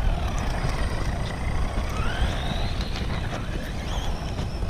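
Small electric RC car motor whining, its pitch rising sharply about two seconds in and then easing off, over a steady low rumble of wind and tyres on rough asphalt, with scattered small ticks.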